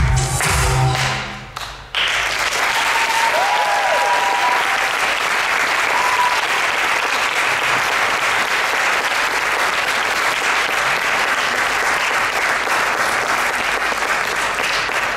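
An audience breaks into steady applause about two seconds in, as the music ends, with a few brief cheers from the crowd soon after.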